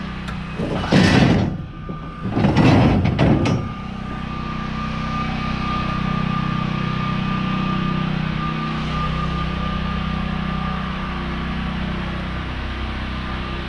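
Two loud rushes of noise, about a second each, then a vehicle engine running steadily with a faint constant whine over it.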